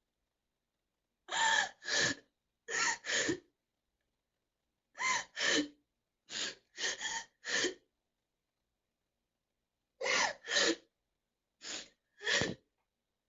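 A girl crying: short, gasping sobbing breaths that come mostly in quick pairs, in about six groups separated by dead silence.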